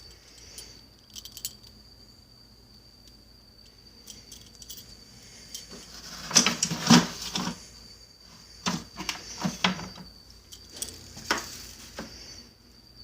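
Clinking and clattering of small hard objects being handled and moved, in scattered bursts, loudest about halfway through, over a steady faint high-pitched tone.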